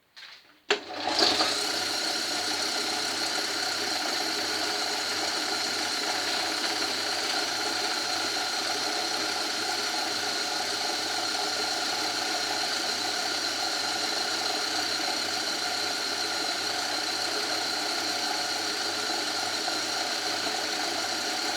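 Old Myford lathe switched on about a second in, then running steadily with a constant high whine over a low, evenly pulsing hum.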